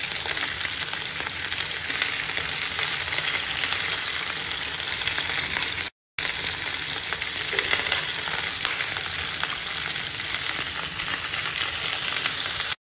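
Pieces of marinated lamb sizzling in ghee in a frying pan while they are turned with a wooden spatula: a steady frying hiss. The sound cuts out for a moment about six seconds in.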